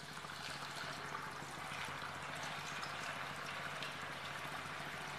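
Rice-flour dough fingers deep-frying in hot oil in a kadhai: a steady crackling sizzle that grows a little louder as more fingers go in.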